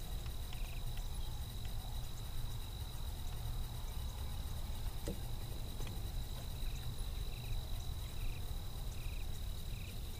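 A steady high-pitched whine or trill held at one pitch, with faint short chirps now and then, over a low rumble.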